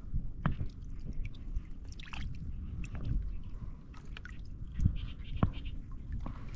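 Small close-up water sounds of shallow water being disturbed, drips and little splashes, with scattered clicks and a couple of low knocks in the second half from handling the rod and gear.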